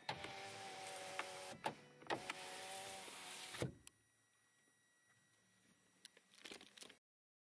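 2017 Toyota Corolla power window motor whining as it drives the door glass, in two runs of about a second and a half. The first stops with a click; the second ends in a thump as the glass reaches the end of its travel. A few faint clicks come near the end.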